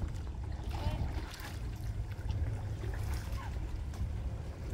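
Water sloshing and splashing lightly around a kayak hull as the kayak moves off from shore, over a steady low rumble.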